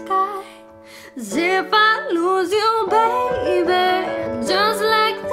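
A woman singing a slow pop ballad over instrumental backing, pausing briefly before she comes back in about a second in.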